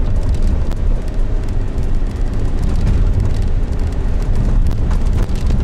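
Steady engine and road noise inside a moving car's cabin: a low rumble with a hiss of tyres on a wet road surface.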